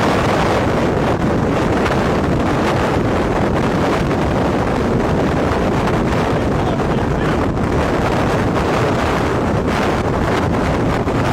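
Loud, steady wind buffeting the microphone, typical of storm-chase footage filmed in strong winds near a tornado.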